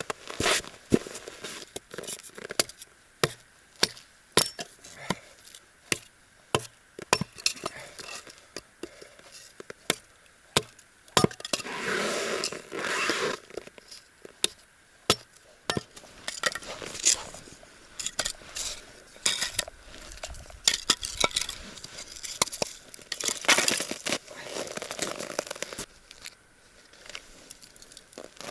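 Firewood and bark being handled and broken: irregular sharp knocks and snaps, with a few longer stretches of rustling and scraping.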